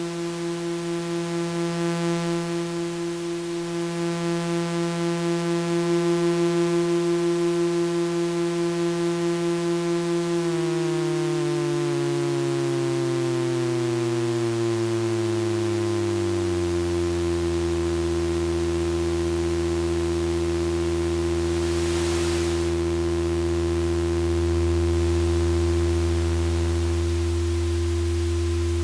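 Eurorack synthesizer oscillator tones mixed through a homemade mixer module under test. Two steady notes, at first with a slow wobble in loudness; about ten seconds in, one note glides smoothly down in pitch for several seconds and then holds a lower note. One of the tones cuts out near the end.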